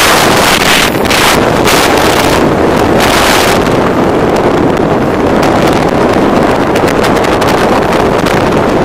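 Loud wind buffeting the microphone over the steady rush of a boat moving at speed across the water.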